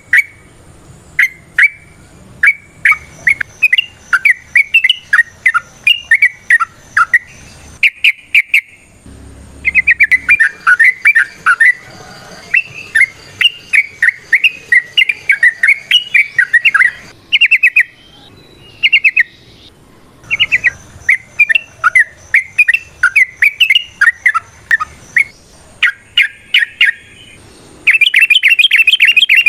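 Sooty-headed bulbul (trucukan) singing rapid, bubbly chattering phrases of quick notes in runs broken by short pauses. Near the end the song becomes louder and denser.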